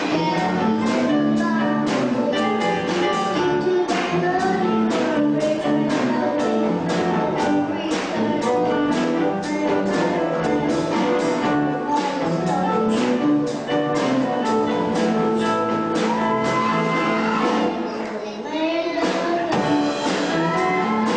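Live country band playing at a steady beat, with drums and electric guitar, and a voice singing over it.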